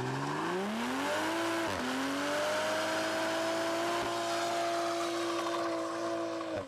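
Toyota GR Supra engine revving up over about two seconds, dipping briefly, then held at steady high revs during a burnout, with the hiss of spinning rear tyres. It cuts off suddenly near the end.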